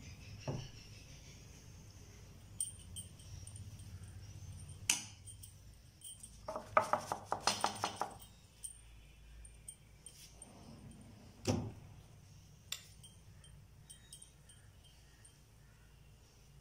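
Light clinks and knocks of a metal ladle against an aluminium cake pan and batter bowl, a few scattered single knocks with a quick run of ringing taps about seven seconds in.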